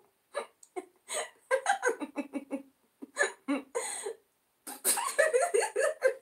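Recorded laughter sound effects: a string of short clips of people chuckling and giggling, broken by brief silences between clips.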